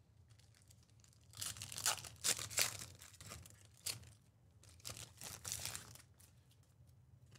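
A trading card pack wrapper torn open by hand and crinkled, in a series of ripping strokes starting about a second and a half in, the loudest in the first couple of seconds.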